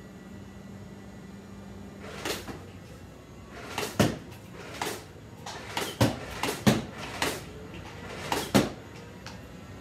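A series of about ten sharp knocks and clacks, irregularly spaced, starting about two seconds in.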